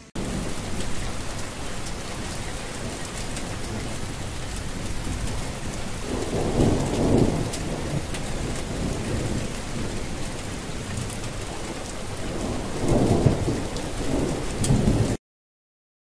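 Steady heavy rain with two low rolls of thunder, one about six seconds in and one about thirteen seconds in. The rain starts abruptly and cuts off suddenly near the end.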